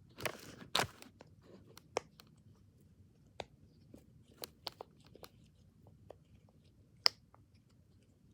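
Small plastic fidget toys being handled and set down: two brief rustling scrapes in the first second, then scattered light clicks and taps, with one sharper click about seven seconds in.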